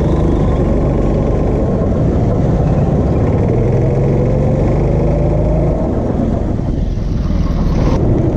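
Go-kart engine running hard under the seat, its pitch rising steadily as the kart accelerates, then easing off about six seconds in.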